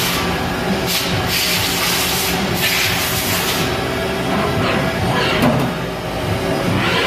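Mazak Variaxis 500 CNC vertical mill running its spindle at about 8,000 rpm at a 30 inch-per-minute feed: a steady machine whine under a dense wash of noise, with repeated surges of hiss.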